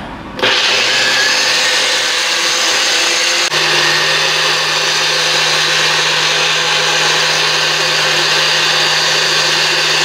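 Personal bullet-style blender running steadily, chopping chunks of fruit and leafy greens into a smoothie. It starts about half a second in; after a brief dip about three and a half seconds in, a steady low hum joins the motor noise.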